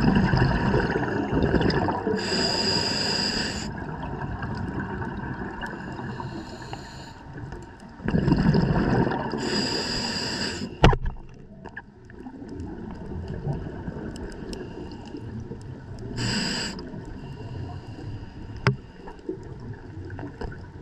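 Scuba regulator breathing recorded underwater: bubbling exhalations with a short hissing inhale after each, about two full breaths and a third inhale late on. A few sharp clicks, the loudest about eleven seconds in.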